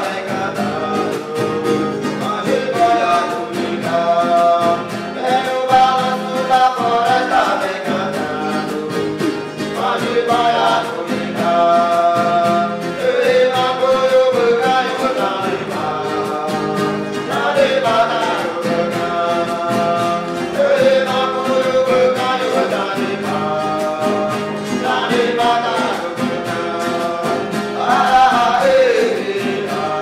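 Huni Kuin chant sung by a group of voices together, accompanied by strummed acoustic guitars.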